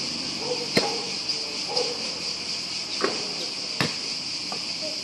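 A basketball bouncing on an outdoor hard court: three sharp thuds, one about a second in and two more around three and four seconds in, over a steady high-pitched insect chorus.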